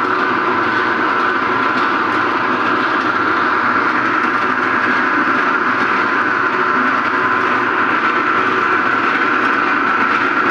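Steady machine noise: an even mechanical drone with a constant high hum, unbroken and without rhythm.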